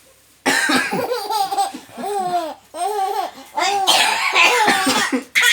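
Baby laughing hard, a string of high squeals rising and falling in pitch about twice a second, starting suddenly about half a second in. The laughter is set off by an adult's coughing.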